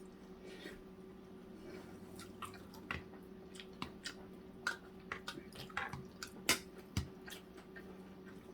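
Faint eating sounds: chewing with irregular wet smacks and small clicks, over a low steady hum.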